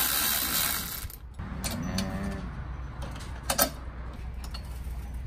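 Cordless ratchet running for about a second and a half, backing a bolt out of an aluminium transom bracket. A short murmur of voice follows, then a sharp metallic click about three and a half seconds in.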